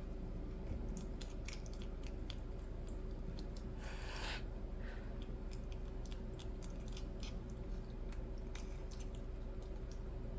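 Siamese cat chewing and gnawing on a chopstick: irregular sharp clicks and crunches of teeth on the stick.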